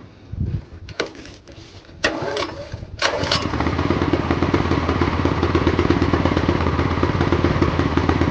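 Gentrax 3.5 kW inverter generator's engine being cranked for its first cold start on choke: a few short bursts of cranking, then it catches about three seconds in and runs steadily.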